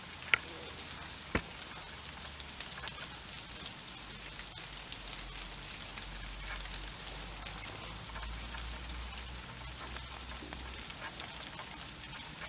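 Steady rain falling on wet tarmac: an even hiss dotted with the patter of drops. Two sharp ticks stand out in the first second and a half.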